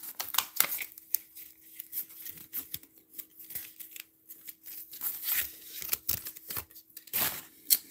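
A wax-paper pack of baseball cards being torn open and crinkled: irregular sharp crackles and rustles, the strongest about seven seconds in, over a faint steady hum.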